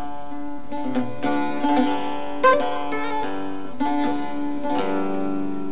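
Instrumental passage of a Turkish folk song: a plucked bağlama playing a slow melody, each note ringing on over a steady low drone.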